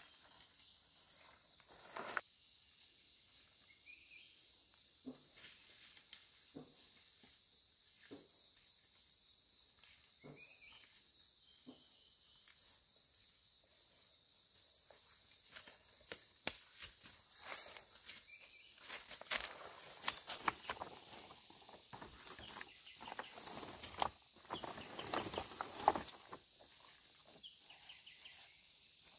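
Steady high-pitched insect chorus. From about halfway on it is joined by irregular rustling, crackling and snapping close by, with a few short rising chirps earlier.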